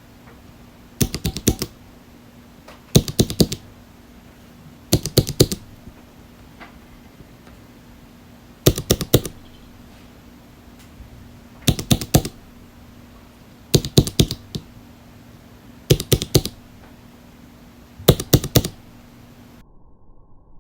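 Lubed Holy Panda tactile mechanical keyboard switches being typed on: eight short bursts of several quick keystrokes each, about every two seconds, over a faint steady hum.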